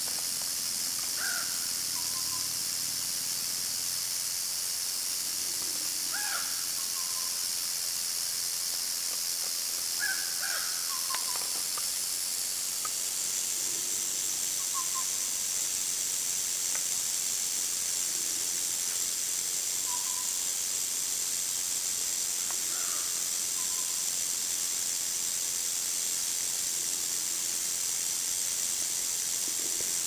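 Timber rattlesnake rattling without a break: a steady, high, dry buzz that drops slightly in pitch about halfway through. It is the defensive warning rattle of a frightened snake.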